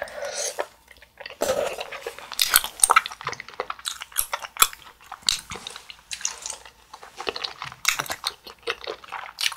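A person chewing chewy Korean rice cakes (rosé tteokbokki), with a dense run of short, sticky mouth clicks.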